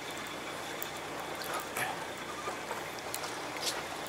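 Sea water washing steadily, with a few faint ticks.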